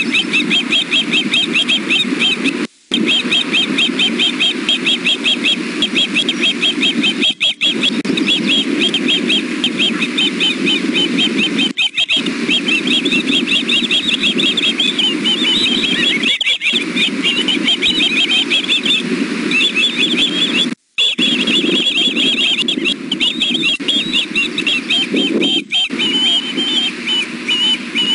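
Juvenile ospreys food-begging: a continuous run of rapid, high, repeated chirping whistles from several young birds at once. Beneath it runs a steady low hum, and the audio cuts out for a split second several times.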